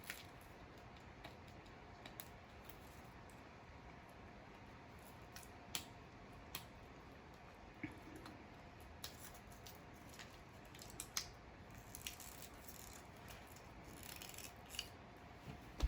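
Faint, scattered clicks and rustles of a LOL Surprise doll's packaging being peeled open layer by layer, the sounds coming thicker a little before the end.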